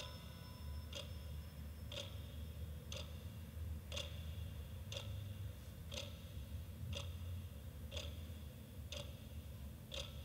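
A clock ticking steadily, one sharp tick each second, over a low hum.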